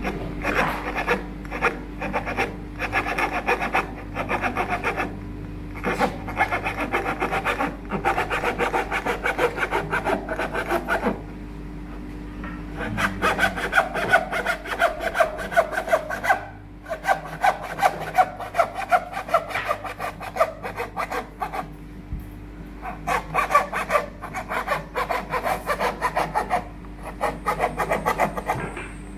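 Hand saw cutting through a veneered wood panel in quick, short strokes. The sawing comes in runs of a few seconds with brief pauses, over a steady low hum.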